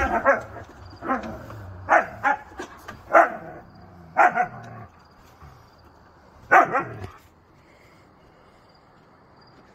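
Siberian huskies play-fighting, giving a series of short barks about every second, the last and loudest near seven seconds in, after which they stop.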